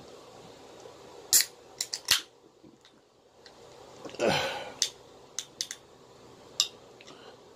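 A scattered series of short, sharp clicks and taps, about eight in all, with a brief rush of noise a little past the midpoint.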